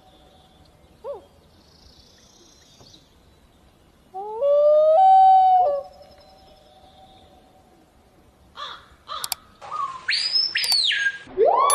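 Bird calls: a short faint call, then one loud call about four seconds in, held about a second and a half. In the last few seconds come clicks and whistles, with a loud rising-then-falling whistle near the end.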